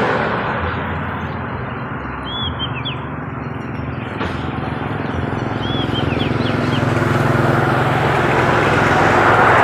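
A steady low engine hum under a broad hiss, getting a little louder in the second half, with a small bird giving short chirping calls a few times.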